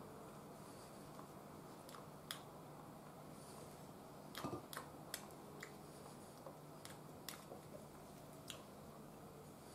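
Chopsticks clicking lightly against a ceramic rice bowl: scattered single clicks, with a few close together about halfway through, over a faint low hum.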